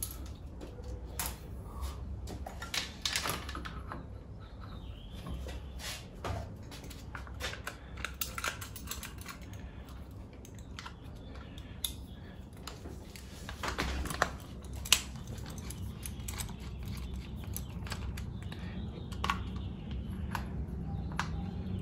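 Irregular light clicks and taps of small plastic and metal parts being handled while an LED display is fitted to an electric bicycle, over a low steady hum.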